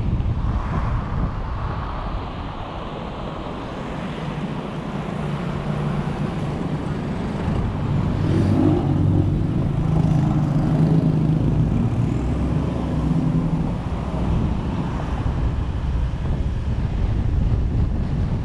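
Car driving on a motorway: steady rush of tyre and wind noise, with an engine drone that builds about halfway through and fades a few seconds later.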